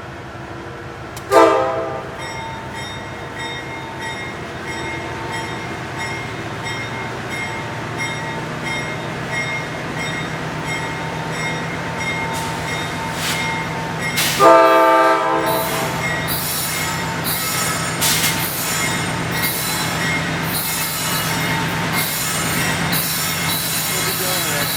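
GE diesel-electric freight locomotives throttling up from a stop, their engines running louder from about eight seconds in. The air horn sounds a short blast about a second in and a longer one about halfway through, with a bell dinging steadily between the two. From about sixteen seconds in, wheels clatter over the rail joints at roughly one beat a second as the train gathers speed.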